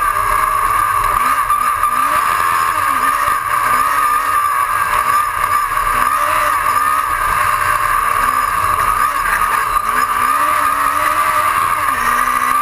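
Autocross race car's engine at full racing pace on a dirt track, loud and close, its note rising and falling over and over as the driver accelerates and lifts through the corners.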